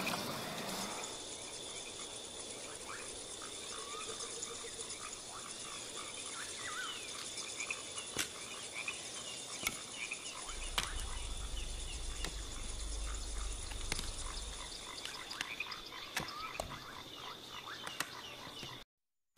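Wild ambience with no voices: a steady high-pitched insect drone under many short, repeated chirping calls from small animals. A low rumble comes in about ten seconds in and fades about five seconds later, and the sound cuts off abruptly just before the end.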